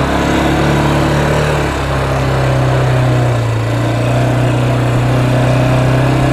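Small vehicle engine running steadily at low speed, its pitch stepping up slightly and dropping again, as during a slow ride.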